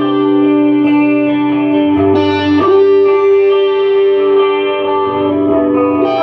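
Guitar music with long, ringing sustained notes; new notes are struck about two seconds in and again near the end.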